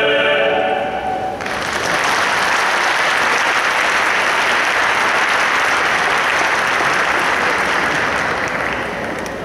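A men's choir holds a last chord that ends about a second in, then the audience breaks into applause, which starts to die down near the end.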